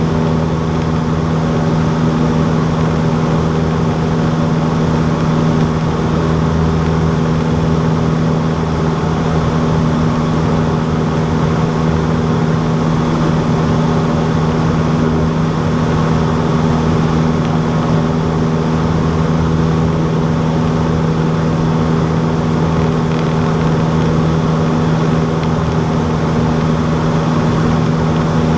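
Cessna 152's four-cylinder Lycoming engine and propeller running steadily, a loud constant drone at one even pitch.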